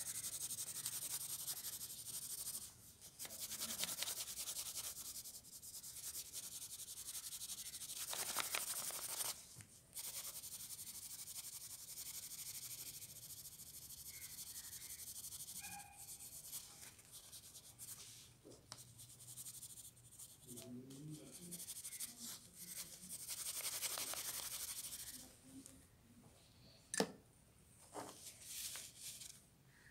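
Graphite pencil shading on paper: a dry scratching rub of back-and-forth strokes, pausing briefly now and then. Near the end the strokes stop and there are a few light clicks.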